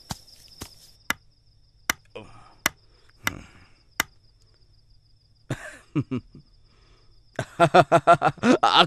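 Mallet striking a chisel on a stone statue being carved: about ten sharp taps, irregularly spaced, over a steady high chirping of crickets. Near the end a man's voice comes in loudly.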